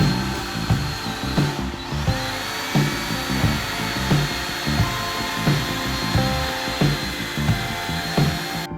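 Background music with a steady beat over a power tool running with a steady high whine.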